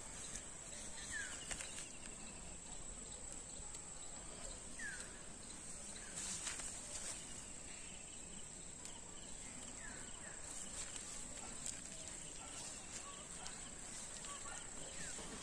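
A steady high-pitched drone of insects, with a short falling bird chirp repeated about every four seconds. Soft clicks and rustles from okra plants being handled and the pods cut come and go, mostly in the middle.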